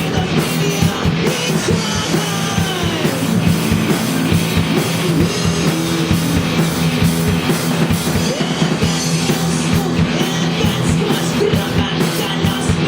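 Live rock band playing, with a steady drum beat.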